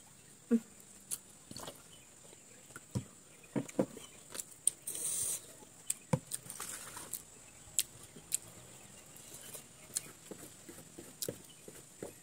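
Scattered light clicks, taps and knocks from a plastic juice bottle, glasses and forks being handled at a table, with a brief crackling rustle about five seconds in.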